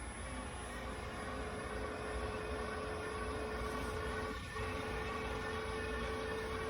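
Dreame H12S cordless wet-dry vacuum mop's motor whirring steadily with a steady hum, slowly getting louder.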